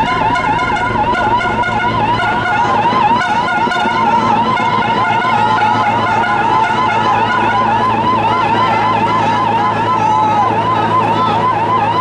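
Electronic siren warbling quickly up and down, about three to four times a second, over a steady low drone from a helicopter flying low overhead.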